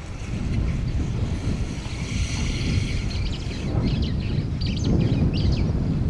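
Wind buffeting the microphone as a steady low rumble, with a few short high chirps in the second half.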